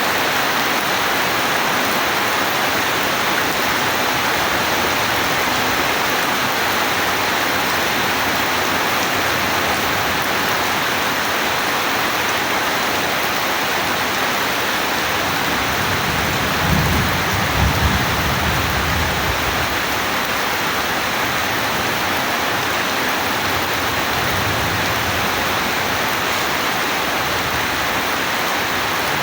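Steady heavy rainfall, an even hiss with no break. A little past halfway a low rumble of thunder swells up for about three seconds, then fades under the rain.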